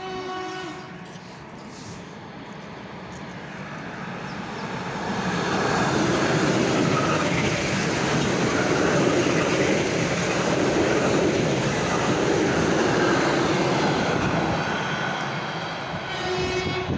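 Ten-car ER9M electric multiple unit passing at speed through a station platform without stopping. A short horn blast sounds at the start, then the rush and clatter of its cars builds over several seconds and stays loud. Another short horn blast comes near the end.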